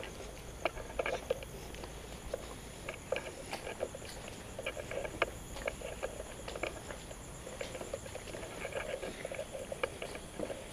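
Footsteps and light scuffs of someone walking across a concrete floor: irregular soft steps and clicks. Behind them runs a faint, steady, high-pitched insect chirring.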